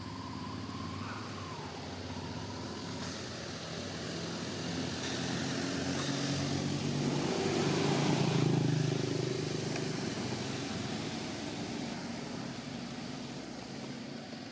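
A passing motor vehicle: engine hum that swells to its loudest a little past the middle and then fades away.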